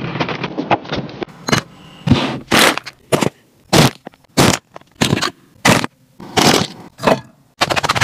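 Plastic snack wrappers crinkling as packets are grabbed and handled, in a run of short crackly rustles, thickening into a continuous crackle near the end.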